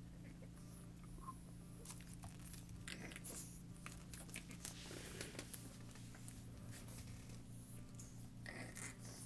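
Faint scuffling and scattered light clicks of a Boston Terrier puppy playing on a hard floor: paws and claws scrabbling and mouthing a rubber band ball. A low steady hum runs underneath.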